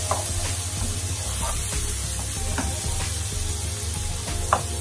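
Sliced peppers, onion and garlic sizzling in hot oil in a frying pan, stirred with a wooden spatula that knocks and scrapes against the pan a few times, loudest near the end.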